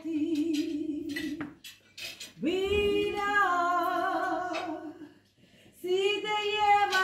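A woman singing unaccompanied in long held notes with vibrato, three phrases separated by short breaths. A few light clinks of cutlery in the first pause.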